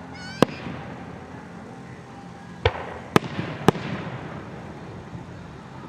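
Aerial fireworks going off: a rising whistle ends in a sharp bang, followed by three more sharp bangs, with a crackling trail after the last ones.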